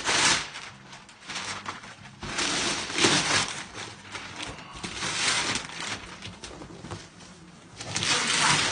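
Wrapping paper and packing tape being torn and rustled as a taped-up box is pulled open, in about four loud bursts of ripping noise with quieter rustling between.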